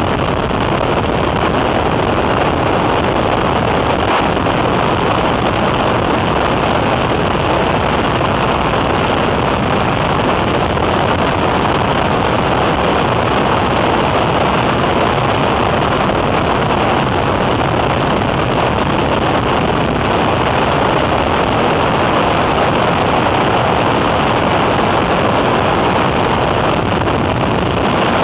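Open-cockpit biplane in flight: a steady, loud rush of slipstream over the microphone mixed with the engine's drone, unchanging throughout.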